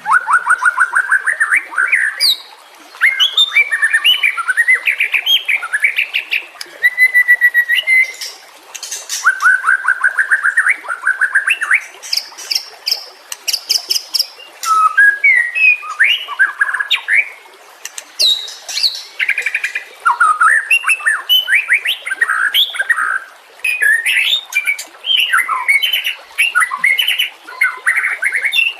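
White-rumped shama singing a long, varied song: fast trills, runs of rapidly repeated notes and sliding whistled phrases, broken by short pauses between phrases.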